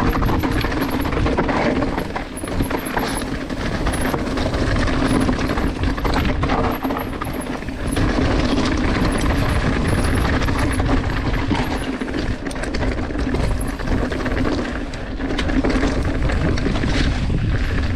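Mountain bike riding fast down a rough dirt and stone trail, heard from a camera on the rider: a steady rush of wind and tyre noise with frequent knocks and rattles from the bike over the bumps.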